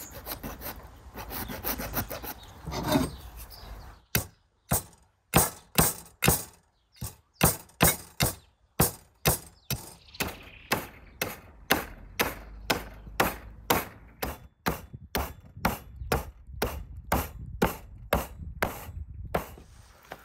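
Cleaver working down the backbone of a lamb rib rack: a few seconds of rough scraping, then from about four seconds in a steady run of sharp hacks through bone, about two a second.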